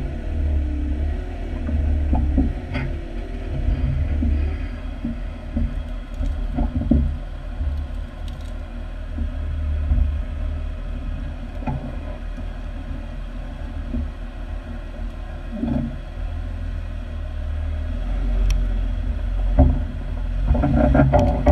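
Jeep engine running steadily at low revs as it crawls up a snowy off-road trail, with a few short knocks along the way.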